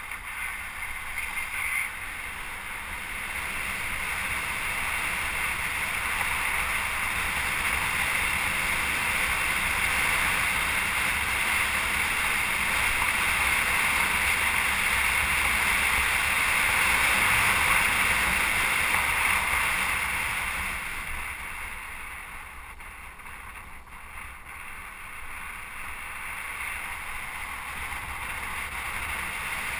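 Steady rushing wind and road noise on the microphone of a moving camera, as when cycling at speed. It swells toward the middle and eases about three-quarters of the way through.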